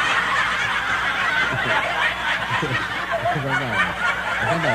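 Several people laughing together at a joke's punchline, with single voices chuckling over the general laughter.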